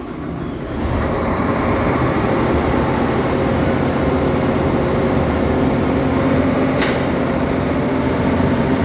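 Standby generator engine just started by the transfer switch's engine-start signal, running up to speed in about the first second and then running steadily. A single short click about seven seconds in.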